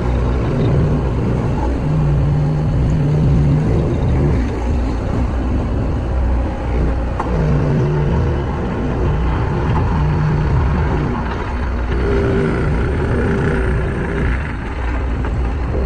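Diesel engines of heavy road-building machines, a road roller and a bulldozer, running with a steady deep rumble. A low engine tone stands out from it several times.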